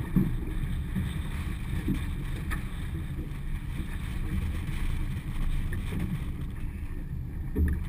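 Wind rumbling on the microphone over choppy water slapping against a small boat's hull, with a brief louder bump near the end.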